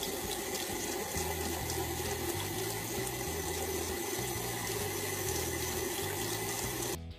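Tap water running in a steady stream from a bathroom faucet into a sink; it cuts off just before the end.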